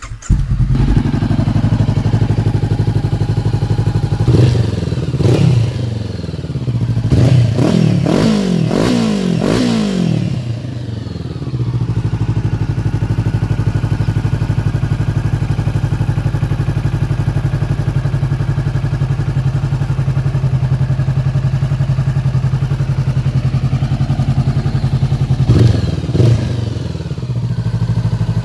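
Honda CB500X's 471 cc parallel-twin engine starting, then revved in a string of blips about four to ten seconds in, through a Blackwidow 300 mm oval carbon fibre silencer with its baffle removed. It settles to a steady idle, with one more short rev near the end.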